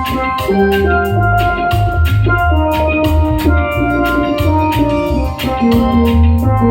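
Reggae music: a heavy pulsing bass line under a steady drum beat, with held melodic notes above.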